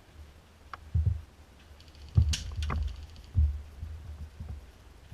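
Dull thumps of movement and handling against a body-worn camera, with sharp clicks and, around the middle, a short fast rattle of airsoft gunfire firing full-auto at a distance.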